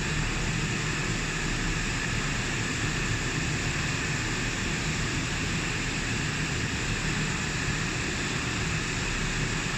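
Many industrial sewing machines running together, stitching invisible-zipper long chain: a steady, even machine din.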